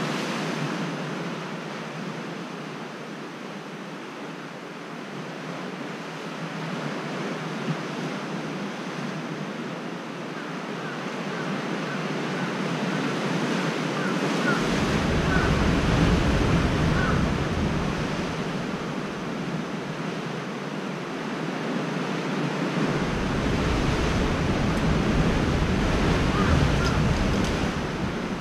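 Sea surf washing against a rocky shore, rising and falling in slow swells. Wind rumbles on the microphone in two gusts, one about halfway through and one near the end.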